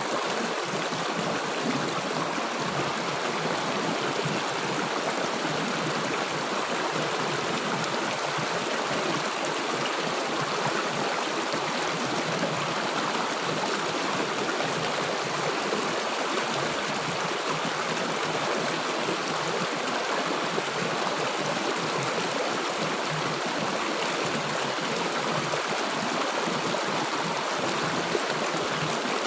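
River water rushing and gurgling steadily.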